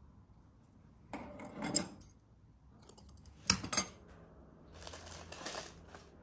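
Kitchen handling sounds while shaping and placing dough: a short rustle about a second in, a couple of sharp clicks around the middle, then a papery rustle near the end as a dough ball is set down on a parchment-lined baking tray.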